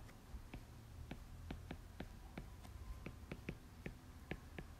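Faint, irregular clicks of a stylus tapping and dragging on a tablet screen during handwriting, about four a second, over a faint low hum.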